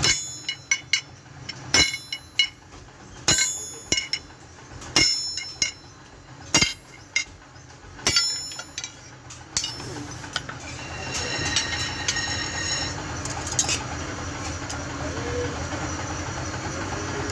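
Hand hammer striking steel, each blow ringing out, about one or two strokes every second and a half for roughly ten seconds; after that, a steady machine-like noise takes over with a faint metallic ring and a few light clinks.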